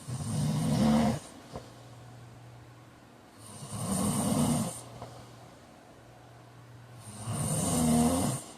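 A man snoring in his sleep: three loud snores, each about a second and a half long and roughly three and a half seconds apart. A steady low hum carries on between them.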